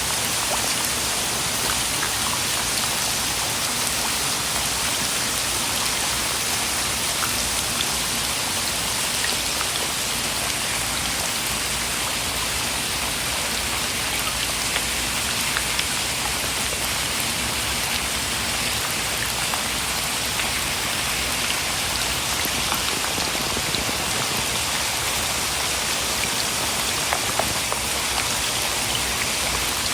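Steady rain falling: an even hiss with scattered faint ticks of single drops.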